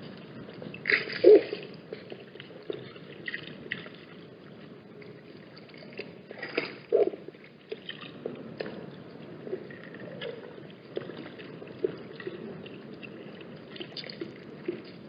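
Irregular splashes and drips of water over a steady wind rush, with the loudest splashes about a second in and again near seven seconds in.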